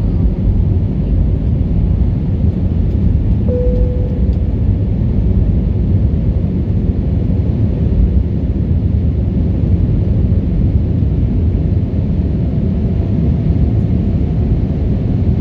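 Steady low rumble of engine and airflow noise inside the cabin of an Airbus A320neo airliner, with a brief tone about three and a half seconds in.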